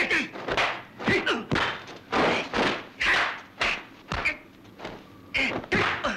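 Martial-arts fight sound effects: a quick run of whooshing blows, about two or three a second, pausing briefly about four and a half seconds in before three more.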